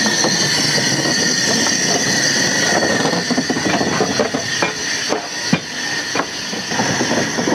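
Narrow-gauge steam locomotive 'Talyllyn' moving slowly at close range, with a steady hiss of steam. About halfway through, a run of irregular metallic clanks and knocks from the locomotive and rails joins in, one louder knock among them.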